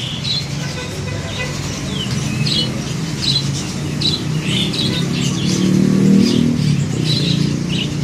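Short, scattered chirps and squawks from caged songbirds, over a steady low rumble of passing traffic that swells to its loudest about five to six seconds in.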